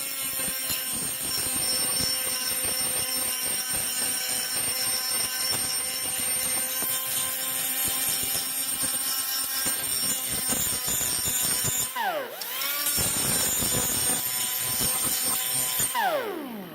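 Die grinder with a wide grinding disc running steadily under light pressure, grinding stamped lettering off the steel of an old bolt-cutter handle. About three-quarters of the way through it briefly winds down and spins back up, and near the end it winds down and stops.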